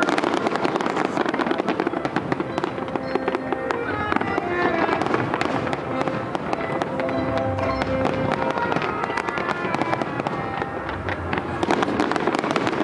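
Fireworks bursting in a dense, continuous barrage of bangs and crackles, with music playing underneath.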